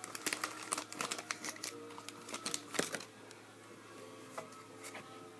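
Baseball card pack wrapper crinkling and cards being handled, a dense run of crackles and clicks for about three seconds that then thins out. Faint background music runs underneath.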